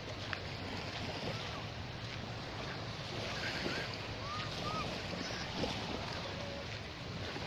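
Beach ambience: small waves washing onto a sandy shore with wind noise on the microphone, a steady even hiss.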